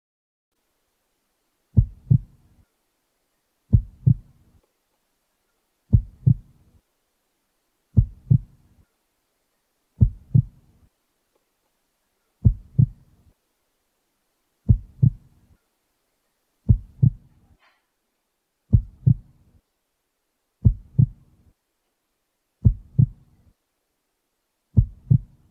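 Heartbeat sound effect: slow, low double thumps (lub-dub), one pair about every two seconds with silence between, building tension before a jump scare.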